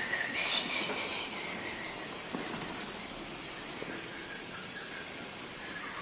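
A steady chorus of night insects chirring in several high bands, with a louder rushing swell that rises and fades in the first second or so.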